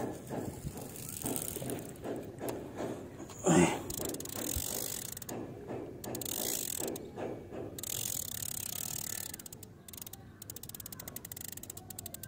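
Fishing reel being cranked, its gears and clicker ticking in a steady rhythm, with one brief louder sound a few seconds in and a faster run of clicks near the end.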